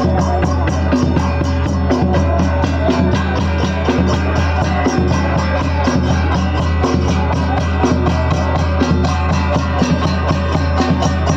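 Music with drums and other percussion keeping a fast, steady beat.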